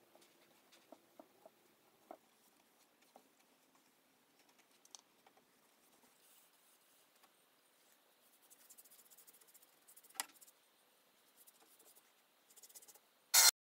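Paintbrush strokes scratching faintly on a wooden dresser, with scattered light clicks and knocks. A short, loud noise comes near the end.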